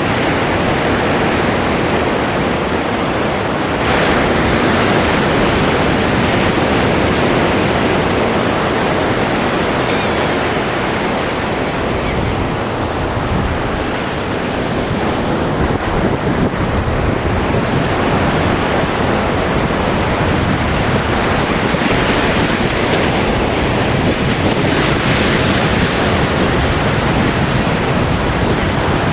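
Ocean surf washing continuously onto a shore, with louder waves breaking about four seconds in and again near the end.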